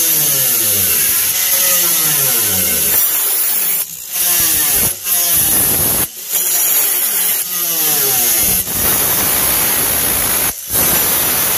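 Small corded angle grinder with a metal cut-off disc cutting through the van's sheet-metal floor. Its whine slides down in pitch again and again as it is loaded in the cut, with a few short breaks.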